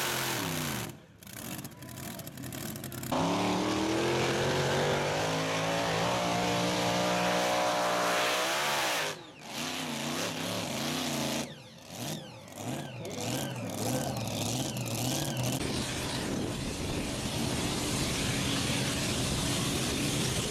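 Mini pulling tractors' racing engines running flat out under load as they drag a weight-transfer sled, several pulls edited together. The engine note drops in pitch at the start, holds a steady high run for several seconds after a cut, then wavers up and down in the later pull.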